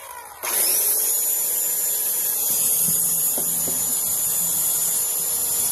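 Electric circular saw starting about half a second in, spinning up quickly and then running steadily at speed with a high whine while its blade cuts into a plastic tub lid.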